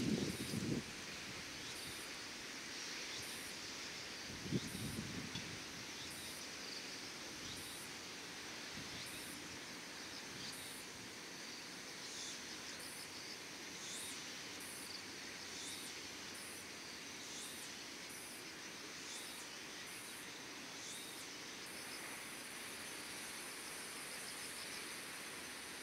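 Insects chirping at dusk: a steady high trill with a short, very high call repeating about every second and a half, and rising chirps beneath it. A brief low rumble of wind on the microphone comes at the very start and again about four and a half seconds in.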